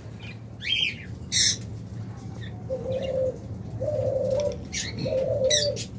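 A dove cooing three times, each coo a low, steady note about half a second long. Small cage birds give a few short, sharp chirps around it.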